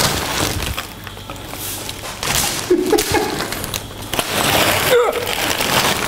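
Plastic bag of ice cubes being bashed with a kitchen knife to break the cubes up: several hard knocks with cracking and crunching ice.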